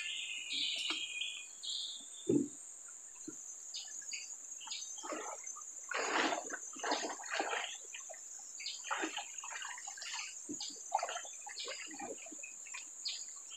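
Irregular splashing and sloshing of river water as people wade and haul up a gill net, over a steady high-pitched insect drone.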